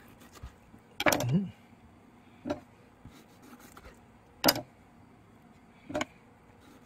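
A kitchen knife slicing raw grey mullet into sashimi pieces, each cut ending in a sharp knock of the blade on the cutting board. There are four knocks, about every second and a half.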